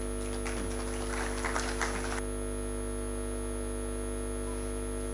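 Steady electrical mains hum on the sound system. Over it, a short spell of scattered applause starts about half a second in and stops about two seconds in.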